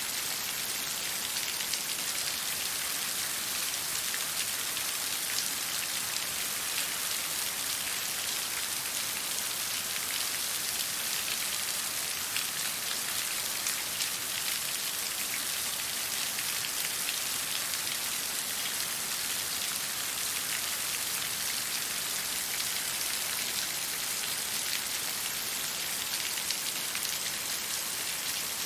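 Steady falling water: a dense, even patter of countless small drops over a constant hiss.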